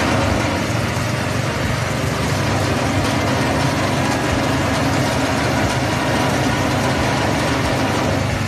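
Forage chopper running steadily with nothing fed into it, its motor and cutter drum a continuous machine noise: started and ready, waiting for the grass to go in.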